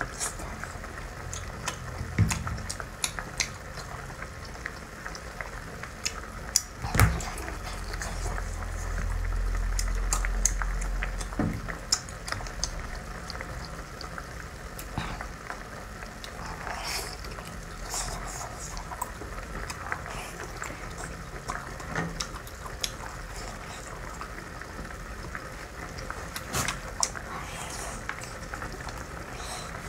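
Wet, close-up eating sounds of spicy sea snail meat being chewed and slurped, with many sharp clicks scattered throughout and a low rumble about a third of the way through.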